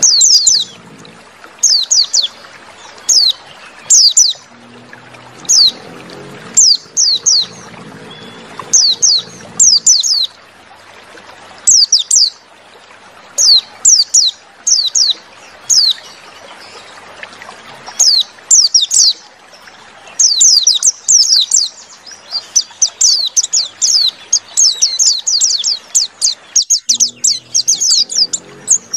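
White-eye (pleci) singing: sharp, high, falling chirps, at first in short groups about a second apart, becoming a fast, nearly continuous chatter from about twenty seconds in.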